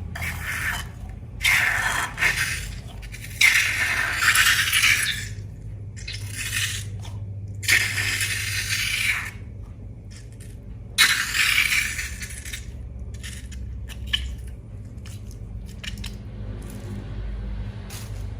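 Slime-making handling sounds: a series of short rattling, scraping bursts of material being worked, each lasting about a second, over a steady low hum.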